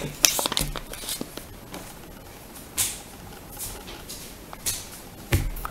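Paper bag of flour being handled, giving scattered crinkles and rustles with a few soft knocks.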